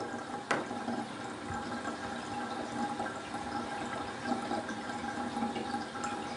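Water running steadily, with a faint steady hum under it and a single sharp click about half a second in.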